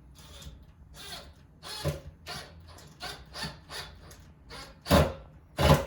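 Repeated rasping strokes on wood, about two a second, with the loudest strokes near the end.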